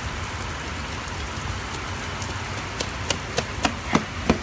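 Heavy rain pouring down on pavement, a steady hiss. In the last second and a half comes a run of quick slaps, about three a second: running footsteps on the wet pavement.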